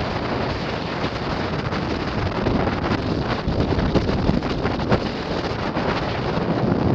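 Wind blowing across the microphone: a steady rushing noise with irregular gusty buffets.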